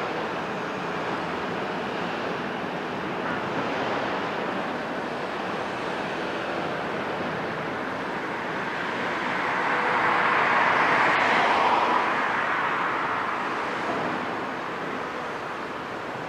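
Cat 374F hydraulic excavator working, its C15 diesel engine and hydraulics running steadily as the machine swings its boom over rubble, growing louder for about two seconds just past the middle.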